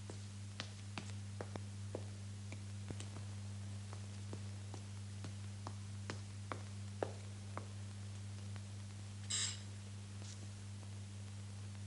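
Footsteps on the stairs, a string of light irregular taps, over a steady low hum; about nine seconds in, a brief electric doorbell buzz.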